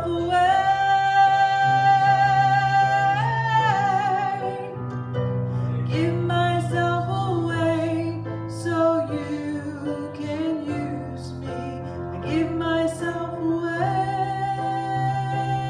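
Slow music: a melody of long held notes with vibrato over a steady low accompaniment.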